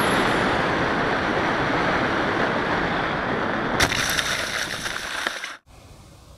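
Steady rushing wind noise on the onboard camera of a small RC airplane flying low and fast. About four seconds in it turns into a scratchy rustle as the plane ploughs through tall grass, then cuts off abruptly, leaving a faint outdoor background.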